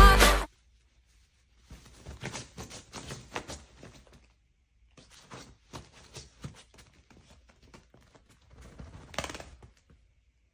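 Music cuts off about half a second in. Then a small dog paws and digs at a quilted fabric sofa cover, giving three spells of faint scratching and rustling.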